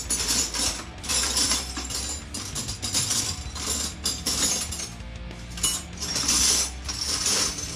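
Metal hand tools clinking and rattling in several irregular bursts as wrenches are sorted through to find the right size.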